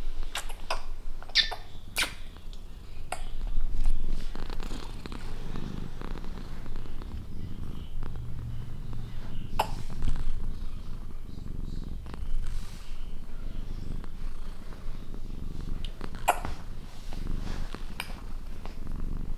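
Domestic cat purring steadily while asleep, a low continuous rumble, with a few brief clicks over it.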